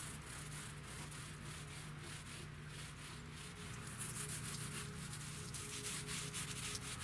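3-inch foam paint roller rolling oil-based paint onto wood, a soft repeated rubbing with each back-and-forth stroke, a little louder from about four seconds in.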